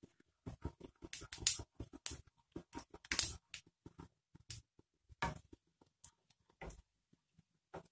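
Cumin seeds frying in hot oil in a stainless-steel pan, stirred with a wooden spatula: quick, irregular scrapes and crackles, a few louder ones about one and a half and three seconds in.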